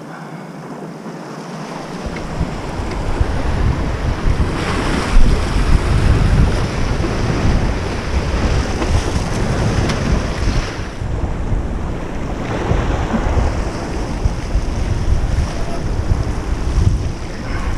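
Wind buffeting the microphone in heavy low rumbling gusts, over surf washing against the jetty rocks. The gusts build about two seconds in and surge several times, the strongest around five seconds in.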